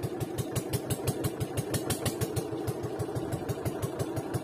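Boat engine running steadily, with an even beat of about eight pulses a second.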